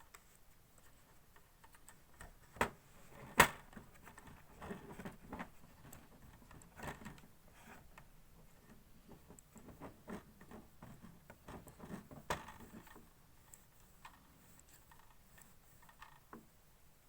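Scattered clicks and knocks of ring-light mounting parts being handled and fitted together, with a sharp click a little after three seconds in and another around twelve seconds.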